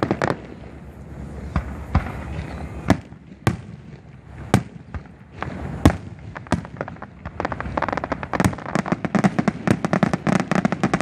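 Fireworks display: aerial shells going off in single booms a second or so apart, then, about seven seconds in, building into a dense, rapid barrage of bangs and crackle.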